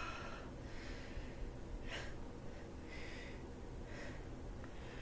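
A person with a head cold breathing and sniffing faintly, short breaths about once a second.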